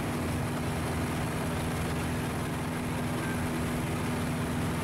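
Just Aircraft Highlander light aircraft in level flight, heard inside the cabin: the engine and propeller drone steadily with a constant hum.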